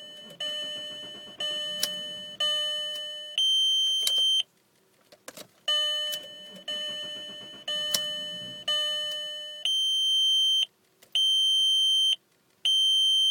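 Volkswagen Jetta instrument-cluster warning chime going off during an attempt to start the car: two runs of about four ringing, fading chimes about a second apart, then three steady beeps near the end. The engine is faintly heard catching underneath before it shuts off, which the owner puts down to the immobilizer cutting the car off.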